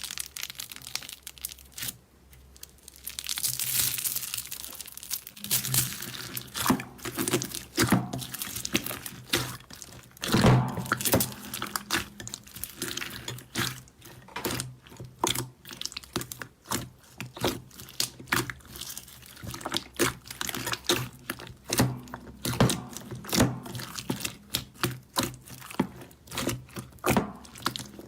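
Hands squeezing, stretching and pulling apart slime, making a dense run of sticky crackles, pops and tearing sounds.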